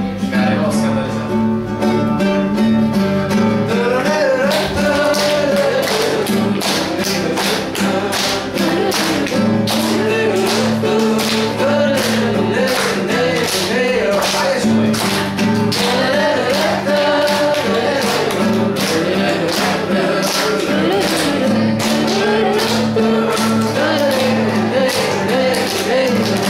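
Acoustic guitar strummed while a man sings a folk song, with a group of children clapping along in time.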